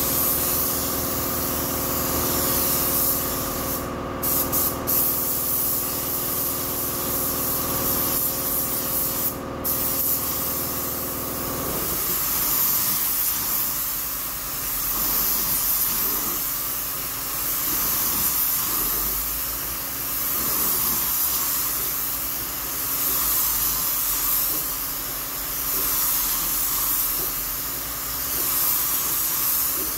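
Gravity-feed air spray gun hissing as it sprays clear coat, the hiss swelling and fading with each pass and breaking off briefly twice in the first ten seconds. A steady machine hum runs underneath and stops suddenly about twelve seconds in.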